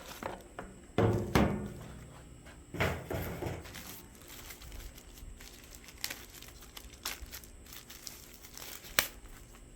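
Packaging being handled and pulled open by hand: crinkling, rustling and tearing, with a couple of louder handling noises about a second and three seconds in, scattered small clicks and a sharp click near the end.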